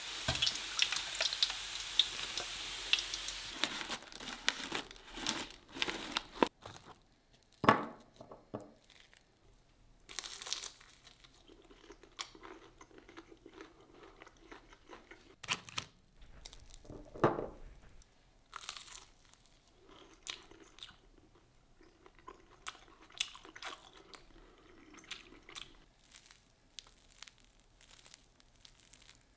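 Breaded nuggets sizzling in a saucepan of hot frying oil for the first few seconds. Then come crisp crunching bites and chewing of a fried nugget, with the loudest crunches about 8 and 17 seconds in. Near the end comes the softer crackle of the crust being pulled apart.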